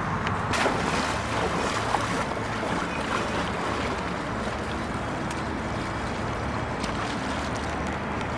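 Steady outdoor noise of wind on the microphone and water lapping, with a low steady hum underneath and a few faint knocks.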